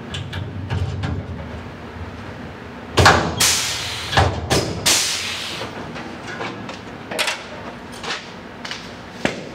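Pneumatic rivet gun setting blind rivets: loud snaps with bursts of air hiss about three to five seconds in, then several lighter sharp clicks near the end.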